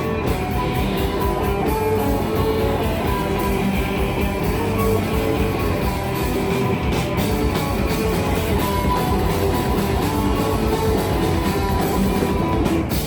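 Live rock band playing, with electric guitar over a drum kit.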